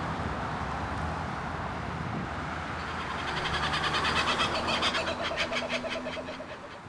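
A bird calling in a rapid series of repeated notes over a steady outdoor background rush. The calling swells about halfway through and fades toward the end.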